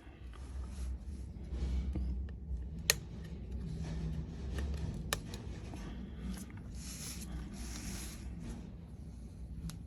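Handling noise on a repair bench: irregular rubbing and scraping with a few sharp clicks, a low rumble under the first half.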